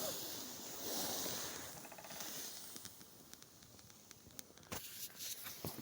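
Pine tree creaking: a short, buzzy creak about two seconds in over a soft hiss, with a few faint clicks near the end.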